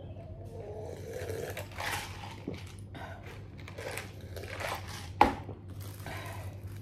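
Gulps and swallowing while drinking from a paper cup, then a single sharp knock about five seconds in as the cup is set down on the table, over a steady low hum.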